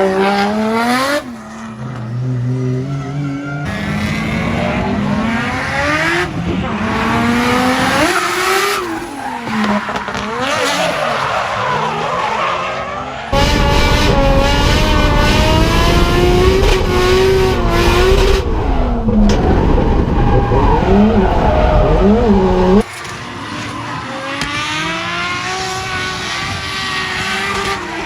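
Nissan Silvia S14 drift car with a swapped RB25 straight-six engine, revving up and down repeatedly through drift runs, with tyre squeal. The sound jumps abruptly in level several times.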